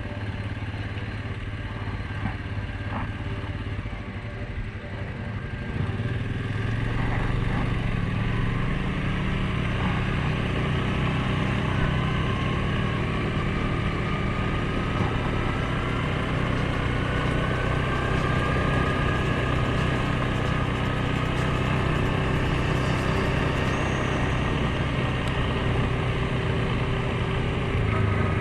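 Suzuki KingQuad 750 ATV's single-cylinder four-stroke engine running steadily while riding a trail, getting louder about six seconds in, with gentle rises and falls in pitch as the throttle changes.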